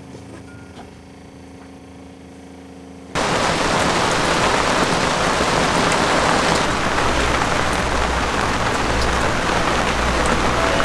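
Rain pouring down steadily onto the sea and a sailboat's deck. It starts abruptly about three seconds in as a loud, even hiss, after faint background music.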